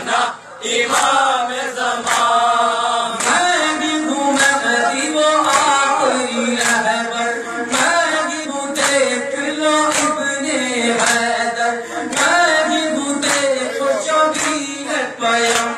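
Male voices chanting an Urdu nauha, a Shia lament, in a steady repeated melody. A steady rhythm of sharp slaps runs under it: matam, men beating their chests in time with the recitation.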